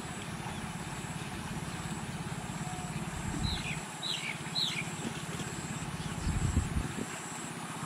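A small engine runs steadily in the background with a low, even pulsing. About halfway through, a bird gives three quick descending chirps. A few low bumps come shortly before the end.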